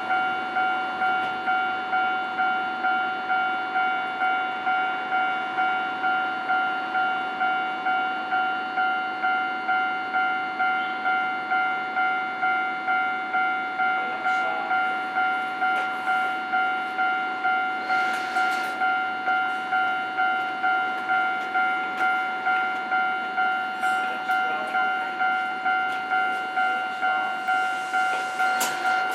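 Japanese railway level-crossing warning bell ringing steadily, an electronic clang repeating a little under two times a second, each strike fading quickly: the signal that the crossing is closed for an approaching train.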